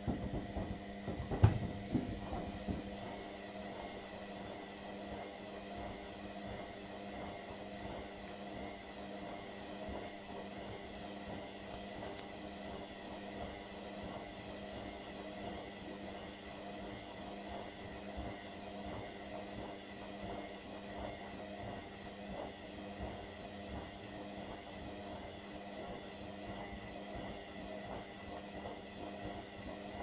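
Indesit Innex front-loading washing machine running a sudsy load, its motor turning the drum at a steady speed in the load-distribution phase, with a steady hum and whir. A few knocks from the drum come in the first few seconds, the loudest about a second and a half in.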